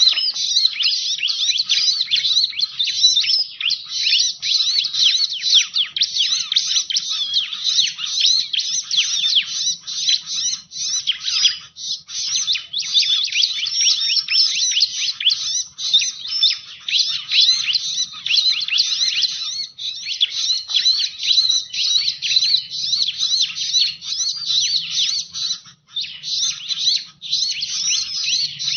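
Bar-winged prinia (ciblek) calling in a dense, continuous stream of rapid high chirps and trills, the kind of call played as a lure to draw these birds in. The calling breaks off briefly twice, about twelve seconds in and near the end.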